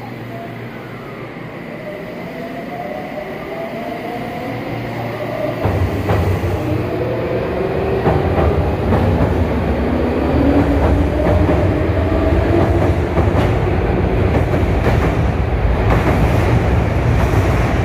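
Tokyu 9000 series electric train pulling away from a station. The whine of its traction motors rises steadily in pitch as it accelerates. About five and a half seconds in, a heavy rumble sets in as the cars pass close, with wheels clicking over rail joints.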